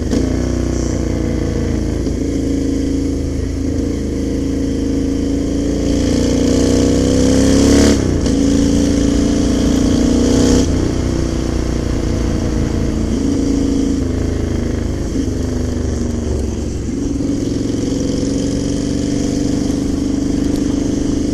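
Honda Shadow 600's V-twin engine under way while riding, mostly steady, with the revs climbing and then dropping sharply twice, about a third of the way and halfway through, as gears change. A steady rush of wind runs underneath.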